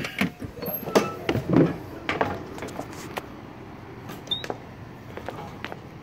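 Thumps and knocks of footsteps and the door as someone walks out of a motorhome and down its entry steps, a handful of hard hits in the first two seconds or so. These give way to a steady low hum outdoors.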